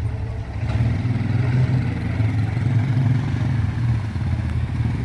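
Quad bike (ATV) engine running at low speed with a steady low drone as the quad rolls past close by.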